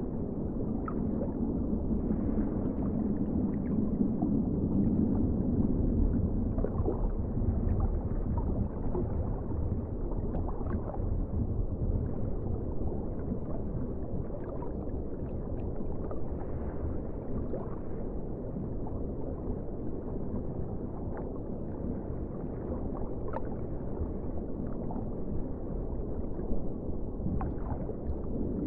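Underwater ocean ambience: a steady, muffled low rumble with faint scattered clicks and bubbling.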